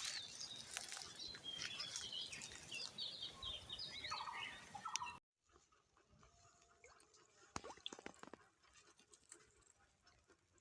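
Birds chirping in quick, repeated, twisting calls over a busy outdoor background, cutting off abruptly about halfway through. After the cut the background is much quieter, with a few faint clicks.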